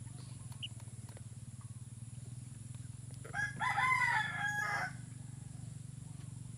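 A rooster crowing once, a stepped call of about a second and a half near the middle, over a steady low hum.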